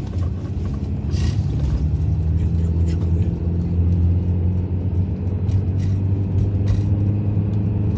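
Car engine and road rumble heard inside the cabin: a steady low hum that grows a little louder about a second in, with a few faint clicks.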